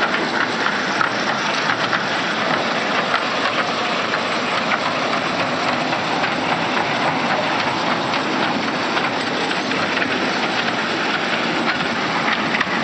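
Kiddie ride train running on its small rail track: a steady running noise with many light, rapid clicks from the wheels on the rails.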